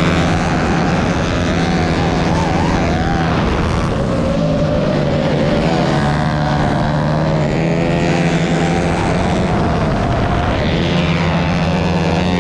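Race motorcycle engines revving as they lap, mixed with the whine of a low-flying FPV drone's motors. The pitch wavers up and down throughout over a steady low hum.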